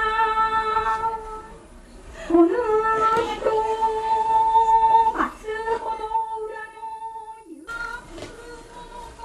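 A woman chanting a waka poem into a microphone in long, drawn-out held notes: the traditional intoned reading of an uta-garuta poem card. The chant pauses about one and a half seconds in, resumes, and breaks off about three-quarters of the way through, leaving only quieter background sound.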